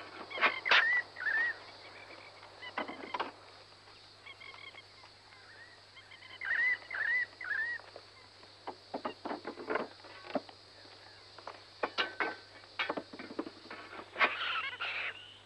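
Birds calling in short, repeated arched notes, in two bursts of three or four calls, with scattered sharp knocks in between.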